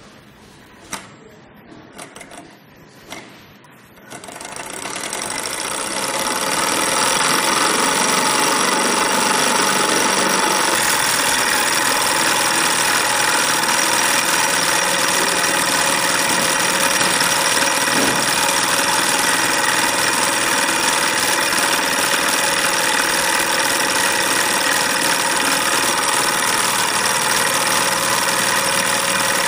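Model hot-air Stirling engine heated by a spirit burner: a few clicks as the flywheel is set turning by hand, then the engine picks up speed over a few seconds and runs on steadily and fast.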